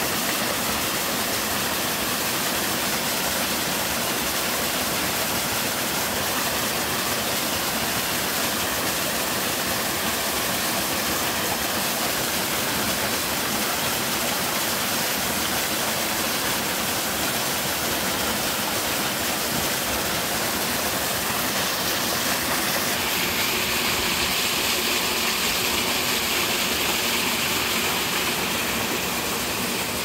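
Small mountain waterfall: a thin stream of water falling over a rock ledge and splashing onto boulders into a shallow pool, a steady rushing and splashing. The sound turns brighter and a little louder for several seconds after about two-thirds of the way in, then settles back.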